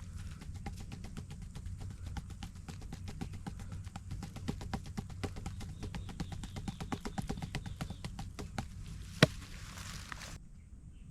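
A rapid, irregular run of light clicks and taps, several a second, over a steady low hum, with one sharp knock about nine seconds in.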